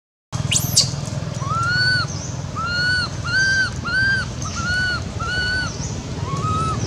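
Infant long-tailed macaque crying: a brief rising squeal, then a run of about eight short, arched, high-pitched cries, roughly two a second.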